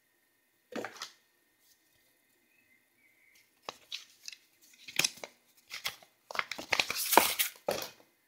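Paper instruction booklets and cardboard packaging rustling and sliding against each other as they are handled. There is one short rustle about a second in, then a run of rustles that gets busier and louder over the last two seconds.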